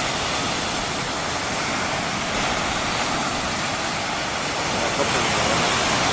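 Mediterranean surf breaking and washing onto a sandy beach: a steady rush of waves that swells a little about five seconds in.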